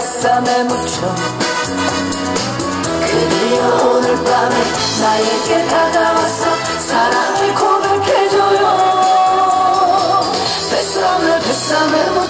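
A woman singing a Korean popular song into a handheld microphone, amplified over musical accompaniment with a steady beat.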